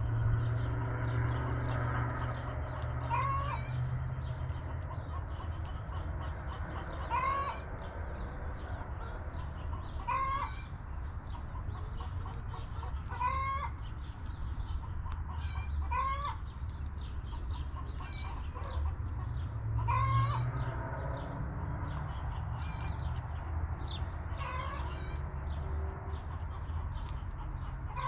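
Backyard hens clucking, one hen repeating a short call that rises at the end, about every three seconds, over a steady low rumble.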